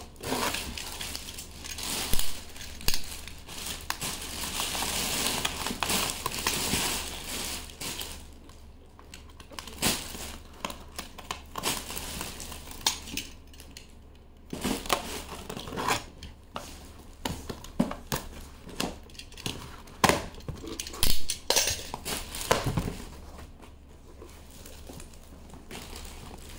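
Plastic packaging crinkling and rustling as goods are unwrapped by hand, steady for the first several seconds, then giving way to scattered knocks and clicks of items being handled.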